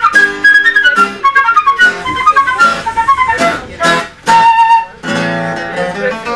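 Transverse flute playing a stepping melody over acoustic guitar chords. About two-thirds through, the flute holds one wavering note.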